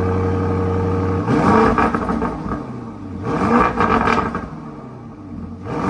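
Lamborghini Urus Performante's 4.0-litre twin-turbo V8 idling steadily through its Akrapovič exhaust, then revved sharply about a second in and again about three seconds in, falling back toward idle each time, with a third rev starting at the very end.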